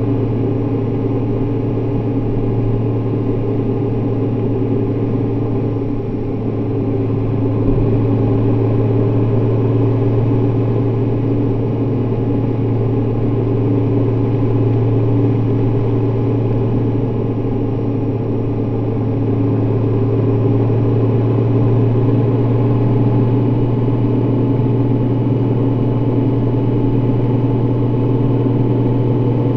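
Honda Gold Wing motorcycle cruising at steady highway speed: an even engine drone with wind noise rushing over the mounted camera.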